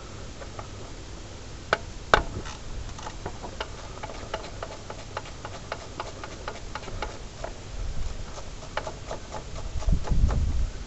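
Ratchet spanner clicking as it works a tight 12 mm nut on the EGR valve of a Ford Ranger 2.5 turbo-diesel, a run of irregular clicks with a sharper knock about two seconds in. A low rumble comes in near the end.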